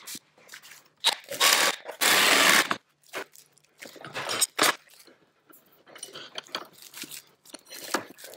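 Plastic wrap crinkling and tearing as it is handled and peeled off a block, in irregular crackling bursts, loudest between about one and three seconds in.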